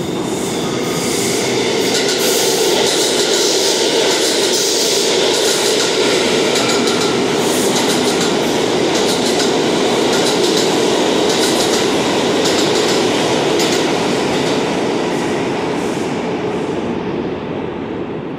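Subway train running past the platform, steady rumble with wheels clicking over rail joints. It builds over the first couple of seconds and fades away near the end.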